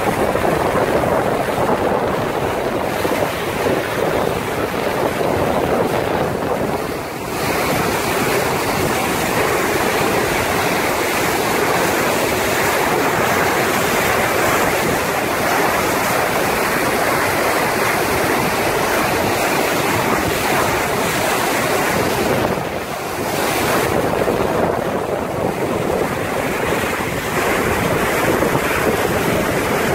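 Bow wave rushing and foaming along the hull of a Puffin 50 sailing yacht under sail, with wind buffeting the microphone. The rush dips briefly twice.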